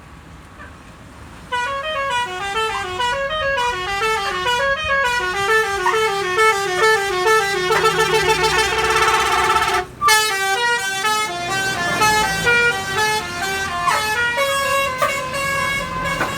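Basuri V3 telolet bus horn, its several air-horn trumpets playing a quick stepping multi-note melody. It starts about a second and a half in, breaks off for a moment about ten seconds in, then carries on.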